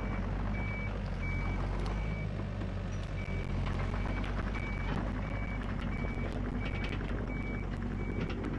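Excavator's diesel engine running steadily under load while the toothed bucket back-drags soil and rocks, with scattered sharp clicks and scrapes of stone. Over it a travel alarm beeps about one and a half times a second, the sign that the machine is moving on its tracks; the beeping pauses for about a second around two to three seconds in.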